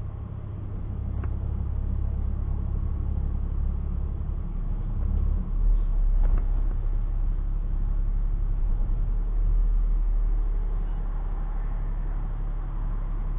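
City bus running along the road: a steady low engine and road rumble. The drone shifts lower and gets a little louder about five to six seconds in, with a couple of faint clicks or rattles.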